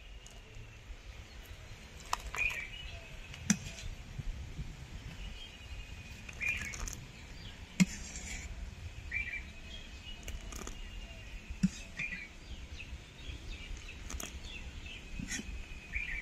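A bird chirping in short calls every few seconds over a low steady background rumble, with three sharp knocks about four seconds apart, the loudest near the middle.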